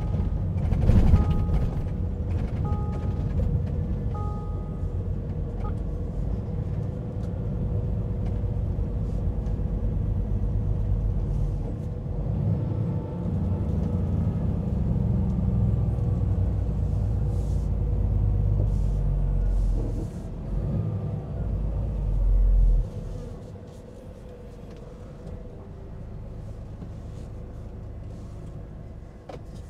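Heavy timber truck's engine running with a deep steady rumble, with a few short repeated two-tone beeps in the first few seconds. About 23 seconds in the rumble drops away to a much quieter idle.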